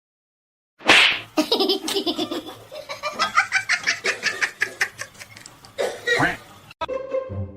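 A sudden loud cry, then a person laughing hard in quick repeated bursts for about five seconds.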